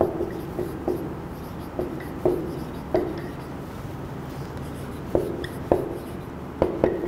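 Marker pen writing on a whiteboard: about nine irregular taps and strokes of the tip on the board, each followed by a short ring.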